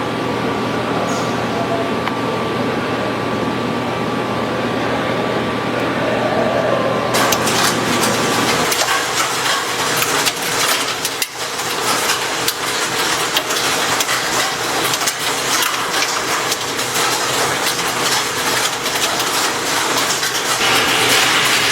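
CNC machine tool running and cutting metal: a steady machine hum with fixed tones, then from about seven seconds in a dense hiss crackling with fine ticks as the cut begins.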